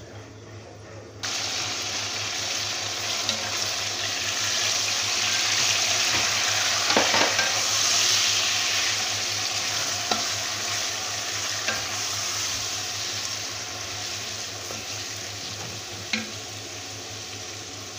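Chopped tomatoes dropped into hot oil and browned onions in a large pot set off a sudden sizzle about a second in. The frying hiss swells as they are stirred in with a spatula, with a few scrapes and knocks against the pot, then slowly dies down.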